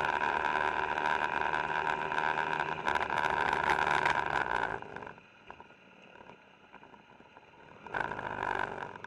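Moving vehicle's engine and road noise picked up by the on-board camera, loud and steady with a steady whine in it, dropping much quieter about five seconds in and rising again briefly near the end.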